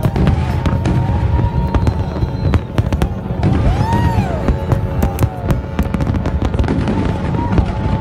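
Fireworks display: aerial shells bursting in quick, dense succession with sharp cracks over a constant low rumble. Several whistles rise and fall in pitch, the clearest about four seconds in.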